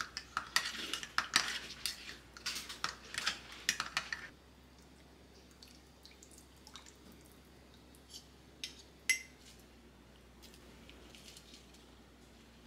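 Dishes and cutlery clattering in a home kitchen: a busy run of clinks and knocks for about the first four seconds, then only occasional light clicks, with one sharper click about nine seconds in.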